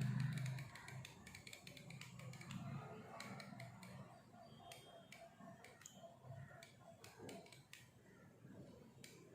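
Refrigerator defrost timer turned slowly by hand, its mechanism giving faint, irregular ticks and clicks.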